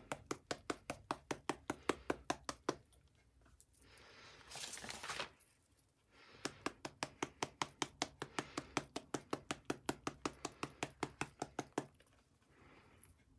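Rapid, even tapping, about five taps a second, from a fine-tip ink bottle being tapped to shake black ink drips out onto paper. The tapping pauses for a few seconds while crumpled packaging paper rustles briefly. It then resumes and stops near the end.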